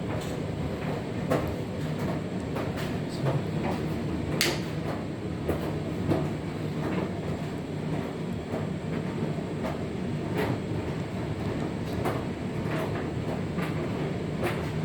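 Hotpoint condenser tumble dryer running with a steady hum and a horrible banging noise: irregular knocks from the turning drum, the sharpest about four and a half seconds in.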